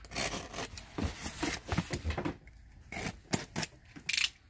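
Box cutter slicing the packing tape on a small cardboard box: a run of short scratchy rasps over about two seconds, then a few clicks and scuffs as the cardboard box is handled.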